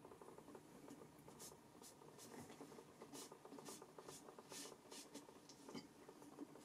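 Faint, light rubbing strokes of pencil on a doll head, about two a second, starting about a second and a half in, as a drawn hair line is blended and softened.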